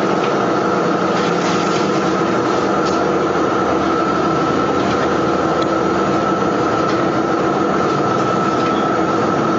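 Steady mechanical noise: a constant rushing hum with a fixed high whine running through it, cutting off suddenly at the end.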